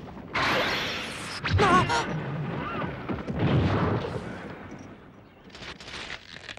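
Battle sound effects from an animated sword-and-horse fight: a sudden loud rush of noise about a third of a second in, then a short wavering cry, and further bursts of noise later.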